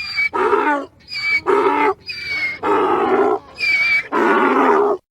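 Donkey braying: four hee-haw cycles, each a thin, squeaky high note on the in-breath followed by a louder, lower 'haw' on the out-breath. It cuts off suddenly near the end.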